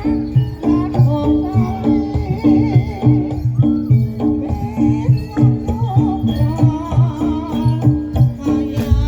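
Live jaranan (kuda lumping) accompaniment music: a traditional Javanese-style ensemble with a steady beat of drums and repeating pitched percussion notes, a wavering melody line on top and jingling rattles.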